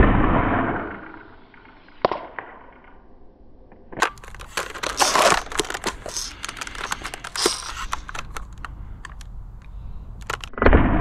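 ZWQ S100 spring-powered Nerf sniper blaster firing a foam dart: a sharp shot with a short fading tail, a small click about two seconds in, then a few seconds of clicking and clattering as the bolt is worked and the next dart loaded, and a second shot just before the end.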